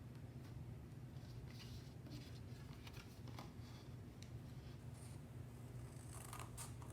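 Faint snips and rustles of scissors cutting watercolour paper, a few scattered strokes, over a steady low hum.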